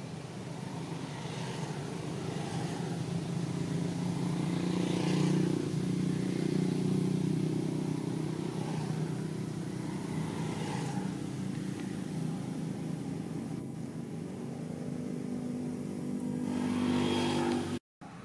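A motor vehicle engine running steadily, swelling and easing a little. It cuts out abruptly near the end.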